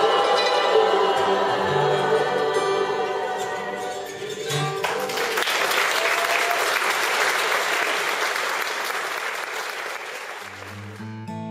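A song ends with voices and instruments on steady held notes, then audience applause for about five seconds, fading away. An acoustic guitar starts strumming near the end.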